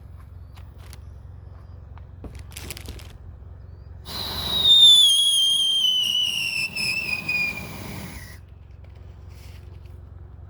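Whistling firework going off: a loud, shrill whistle over a hissing rush starts about four seconds in, slides steadily down in pitch for about four seconds and cuts off suddenly.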